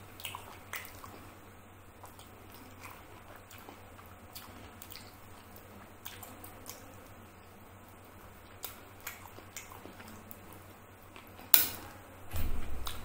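Close-miked eating sounds from chewing chicken curry and rice and picking meat off a chicken bone: scattered wet smacks and small clicks. Near the end comes one sharp, louder click, then a short, louder, muffled stretch as the hand goes to the mouth.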